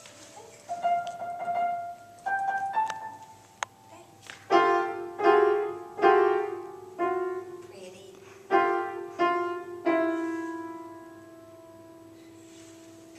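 Grand piano keys pressed by a puppy's paws: a few single notes, then loud clusters of notes struck about once a second, the last cluster left ringing for about three seconds.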